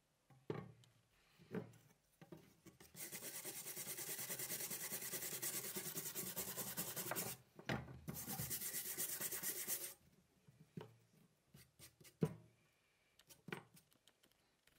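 Stiff hand brush scrubbing rust off an old steel knife blade on a wooden bench, in two bouts of quick back-and-forth strokes separated by a short pause. A few light knocks follow as the blade is handled on the bench.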